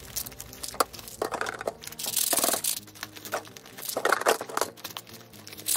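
Plastic wrap crinkling as it is pulled off small plastic candy tubs, with sharp clicks and clacks of the tubs knocking against and dropping into clear acrylic jars. A longer crinkly rustle comes about two seconds in, and another near four seconds.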